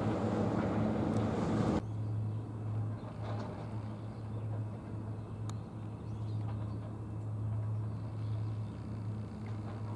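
Outdoor ambience with a steady low hum, like a distant engine, that swells and fades slowly. In the first two seconds a rushing noise, like wind on the microphone, lies over it and cuts off suddenly at an edit.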